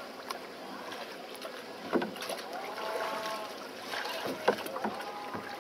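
Wooden rowing boat being rowed, with a knock at each oar stroke about every two and a half seconds over a steady wash of river and background noise.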